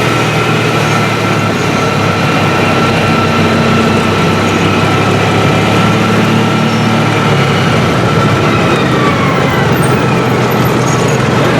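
An engine running steadily, a continuous hum with a thin steady whine above it, and its pitch sliding down a little near the end.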